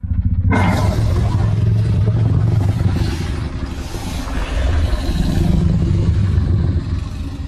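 Loud, harsh, low rumbling monster sound effect for a Godzilla-style kaiju, starting suddenly out of silence, holding for about seven seconds and fading near the end.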